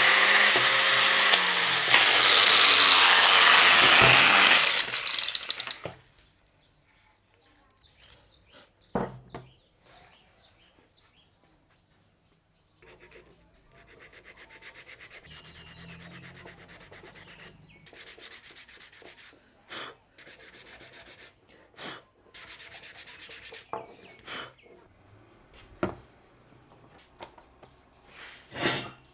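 An electric power tool running loudly, its pitch dropping as it winds down and stops about five seconds in. After that, quieter hand work on wood: light rubbing with scattered knocks and clicks.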